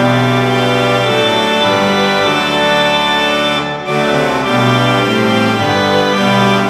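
Instrumental music of slow, sustained chords that change every second or two.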